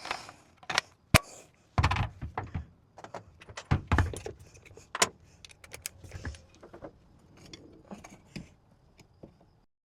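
Irregular clinks, knocks and rattles of small metal hardware and tools being handled while fitting a ceiling fan's mounting coupling, with a few heavier thuds; the sound cuts off suddenly near the end.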